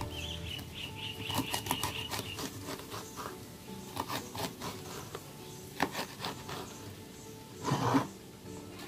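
A kitchen knife slicing a fresh prickly pear cactus pad (nopal) into strips on a wooden cutting board: a run of short crisp cuts with the blade tapping the board, then a louder scrape near the end as the cut pad is pushed across the board. Soft background music runs underneath.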